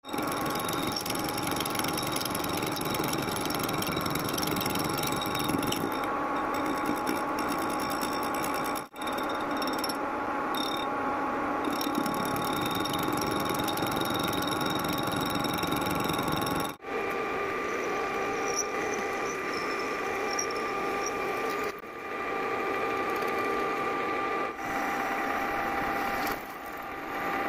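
Metal lathe machining a steel workpiece: a spinning disc-shaped cutter cutting slots into it, then a drill bit boring into it. A steady mechanical din with held whining tones, changing abruptly about 9 and 17 seconds in.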